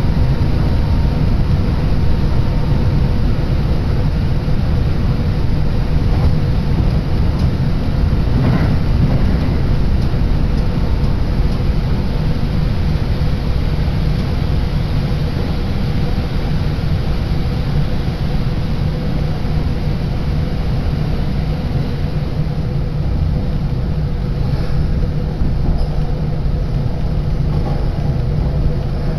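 Steady rumble of a Kintetsu Osaka Line electric train running, heard from inside the passenger car while it goes through a tunnel.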